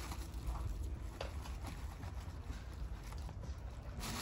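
Faint scattered small clicks and rustles as a turbocharger is handled in its shipping box among bubble wrap and packing peanuts, while its wheel is checked for shaft play.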